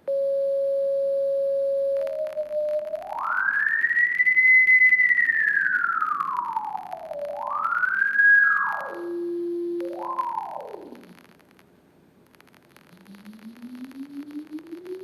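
A single pure sine tone from an app's tone generator, held steady for about two seconds and then swept up and down in pitch as a slider is dragged: a long rise and fall, a quicker rise and fall, then a short jump and a drop to a low pitch. Crackling clicks run through the tone while its frequency is being changed, glitches of the app's own sound synthesis. It drops out for about two seconds and comes back low, rising slowly.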